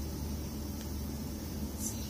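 Steady low rumble of room background noise with a faint hiss, and one brief soft click near the end.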